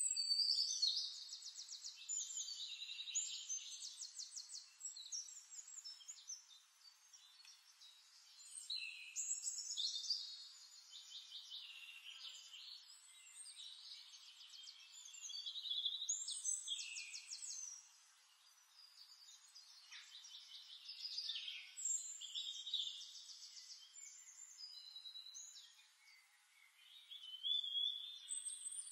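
Songbirds singing in a nature-sound recording: high-pitched phrases of rapid trills and warbles, one every few seconds, over a faint hiss.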